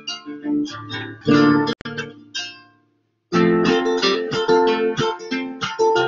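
Nylon-string classical guitar with a capo clamped across the neck, played as plucked notes and chords; the capo shortens all the strings and raises the pitch. The playing stops for a moment about halfway through, then starts again.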